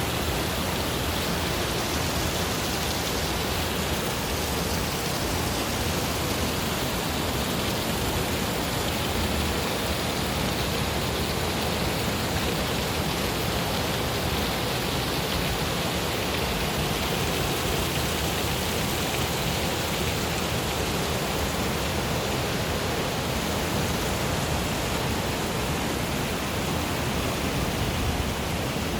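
River water rushing, a steady, even noise with no let-up.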